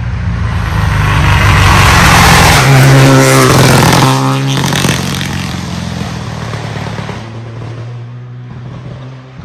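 Rally car passing at speed on a stage road: its engine grows loud as it approaches, is loudest a few seconds in with its pitch shifting as it goes by, then fades away as it drives off.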